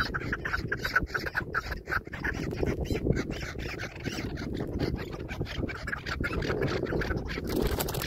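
Chukar partridges calling in a rapid run of short repeated clucking notes, several birds close by. Near the end this gives way to a burst of noise as one bird flushes.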